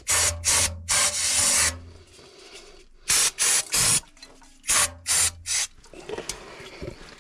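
Aerosol can of brake cleaner sprayed in a series of short hissing spurts, one longer spurt about a second in, onto a wet PVC pipe joint to dry off the water.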